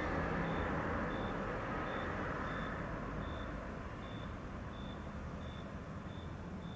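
A passing vehicle's rumble fading away over the first few seconds, with a short high-pitched chirp or beep repeating evenly about one and a half times a second throughout.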